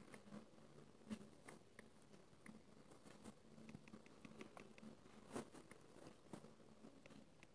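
Faint, irregular taps of fingers typing on a phone's touchscreen keyboard, over quiet room hum.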